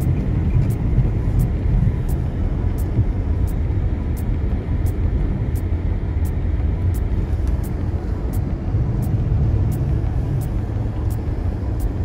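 A car driving slowly over a snow-covered parking lot, heard from inside the cabin: a steady low rumble of engine and tyres on snow. A faint regular ticking sounds about twice a second throughout.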